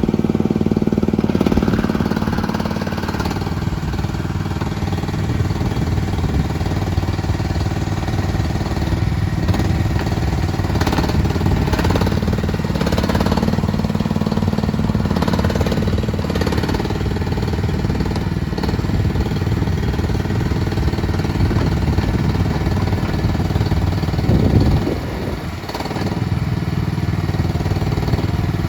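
CFG KT13R mini excavator's engine running steadily, its note changing from time to time as the machine is worked. A few short clanks come in the middle, and near the end there is a brief loud surge followed by a short dip.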